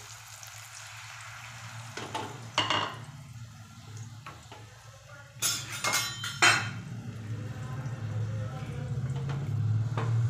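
Egg omelette mixture sizzling in butter in a stainless steel frying pan, with a few metal clinks and knocks of pan and utensils, the loudest cluster about five to six and a half seconds in. A low hum grows louder toward the end.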